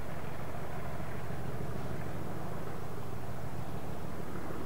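Diesel locomotive running, a steady low mechanical rumble with no change in pitch.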